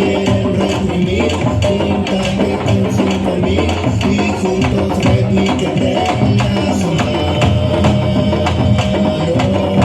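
Candombe drum ensemble playing live: tambor drums beaten with hand and stick in a dense, driving rhythm, with sharp stick clicks on the drum shells over a steady low pulse.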